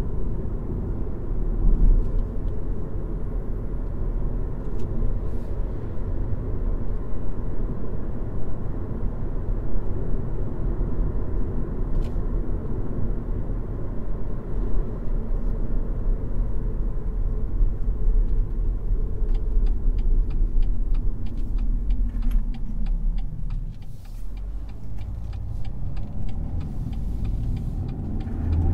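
BMW X1 20d's 2.0-litre four-cylinder diesel running on the move with a steady low road rumble. From about two-thirds of the way through, a regular ticking like a turn-signal indicator joins in. Near the end the sound dips, then the engine note rises as the car accelerates.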